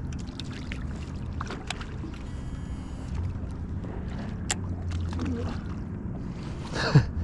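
Electric trolling motor humming steadily under the boat, with scattered small clicks and knocks on board and one short louder sound near the end.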